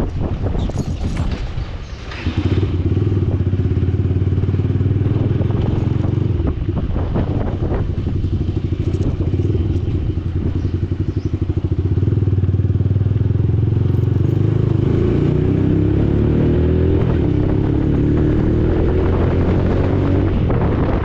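Yamaha YBR 125's single-cylinder four-stroke engine running loud through an aftermarket Akrapovic exhaust with its baffle (dB killer) removed, giving a bassy exhaust note. It drops off briefly about two seconds in, then pulls steadily, rising in pitch near the end as the bike accelerates.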